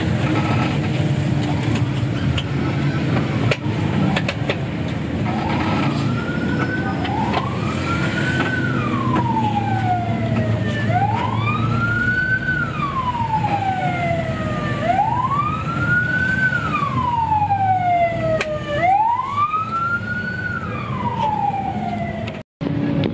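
An emergency vehicle's siren wailing, starting about six seconds in, each cycle a quick rise and a slower fall about every four seconds, four times. It sits over the steady engine and road noise inside a moving bus, and the sound cuts out abruptly near the end.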